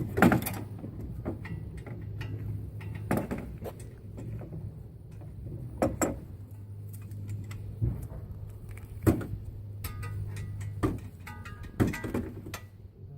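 Scattered metallic clinks and knocks of a socket wrench working on the brake caliper bracket bolts as they are checked for tightness, over a steady low hum.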